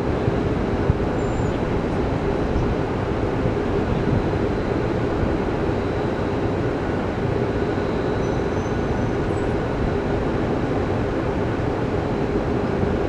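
Steady, unbroken mechanical rumble, like a running vehicle engine.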